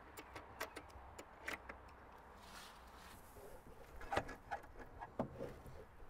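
Metal latch on a wooden nesting-box lid unclipped with a few light clicks, then the hinged plywood lid lifted and a wooden prop stick set to hold it open, with a couple of soft knocks about four and five seconds in.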